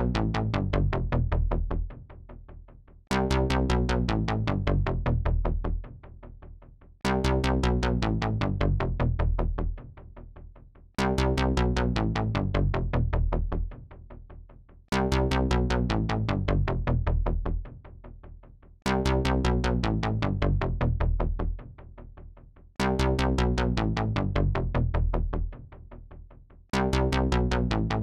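Synthesizer chord sample played over and over, starting afresh about every four seconds. Each chord is pulsing fast over a deep bass, held about three seconds and then falling away.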